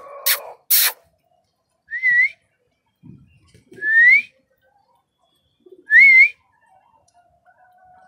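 Two sharp clicks, then three short rising whistles about two seconds apart, each with a small wobble at its top.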